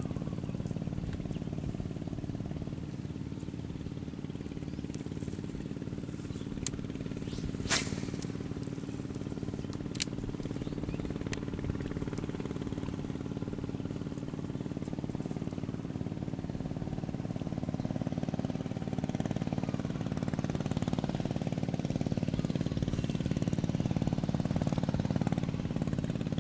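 An engine runs steadily as a low drone of several held tones, growing a little louder in the second half. A few sharp clicks stand out over it, the loudest about eight seconds in.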